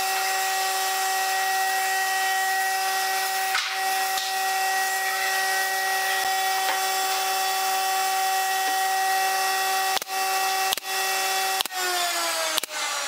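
A steady mechanical whine with several held tones; near the end it falls in pitch. Over it, a pneumatic brad nailer fires four nails into the wood frame, about a second apart, in the last three seconds.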